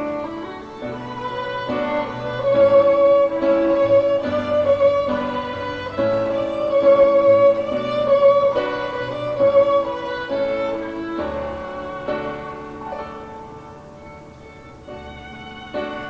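Background music: a slow melody of long held notes over a soft accompaniment, easing off in volume near the end.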